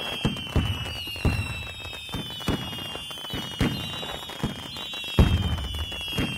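Whistling fireworks: several high whistles sliding slowly down in pitch at once, over a string of irregular bangs and pops, the loudest about five seconds in.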